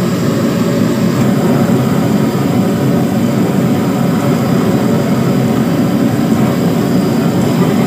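Kitchen exhaust fan running steadily, a loud, even rushing noise with no changes.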